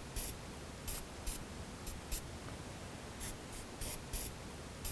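Aerosol can of penetrating oil sprayed in short squirts, about nine brief hisses, onto the rusted jam nut of an outer tie rod end to soak it before loosening.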